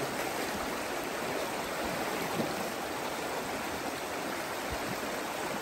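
A stream's water rushing steadily, an even, unbroken wash of sound.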